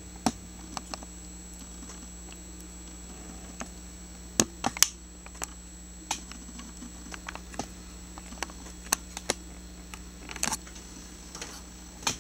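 Irregular light clicks and taps of handling noise, loudest in a short cluster about four and a half seconds in, over a steady low electrical hum.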